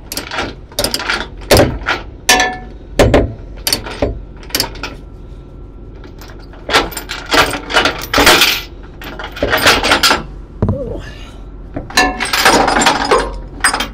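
Steel tie-down chain and ratchet binder being handled, the links clanking against each other and the binder in a run of sharp metallic clinks and knocks. The clatter is busiest about halfway through and again near the end.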